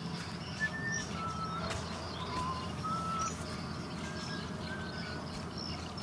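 Wild birds calling: a series of short whistled notes, about one a second, each at a slightly different pitch, with fainter high chirps over a steady low background rumble.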